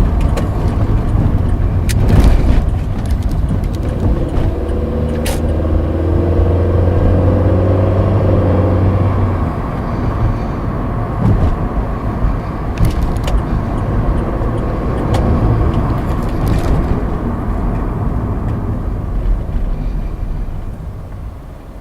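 Cabin sound of a VW Polo Sedan on the move over uneven asphalt: steady road and tyre rumble, with the engine note pulling from about four seconds in until near ten seconds. A few short, sharp knocks come through over bumps, the kind of suspension knocks the owner puts down to the steering rack and the shock-absorber struts.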